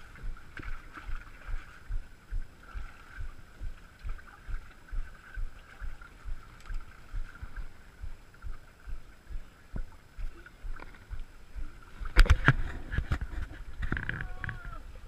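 Footsteps of someone walking over river rocks, a steady pace of about two steps a second, over a steady background hiss. About twelve seconds in comes a loud clatter of knocks.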